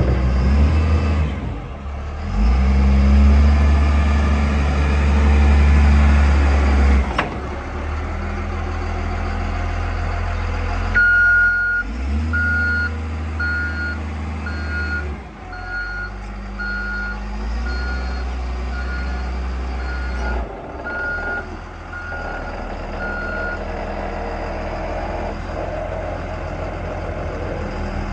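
Caterpillar IT28G wheel loader's diesel engine running, rising and falling in several louder surges as the machine drives and lifts its bucket. About eleven seconds in, its reversing alarm starts beeping about once a second and stops about twelve seconds later.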